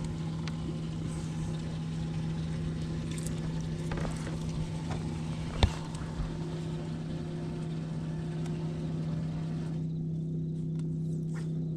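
A fishing boat's motor running with a steady, even hum, with one sharp knock about halfway through.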